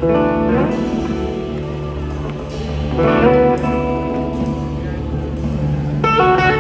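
Electric slide guitar playing slow, sustained notes through an amplifier, with pitch glides into the notes; three phrases begin about three seconds apart, over a steady low drone.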